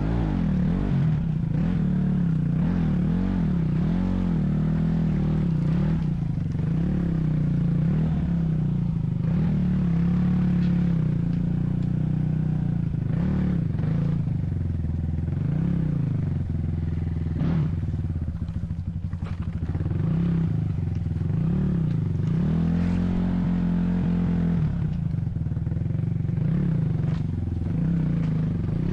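Motor vehicle engine running under changing load, its pitch rising and falling as the revs go up and down, with a few knocks and clatters.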